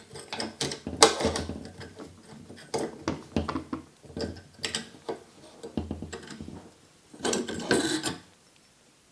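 Metal-on-metal clicks, knocks and rattles of an AR-15 bolt carrier group and charging handle being worked into the upper receiver by hand, with a burst of rattling near the end before it goes quiet.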